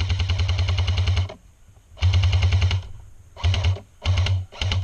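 Airsoft gun firing on full auto in five bursts of rapid, evenly spaced shots: a long burst at the start, then four shorter ones.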